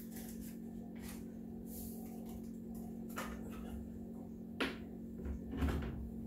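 Faint rustles and a light knock about four and a half seconds in as a drink-mix packet is handled and emptied over a plastic pitcher, over a steady low hum.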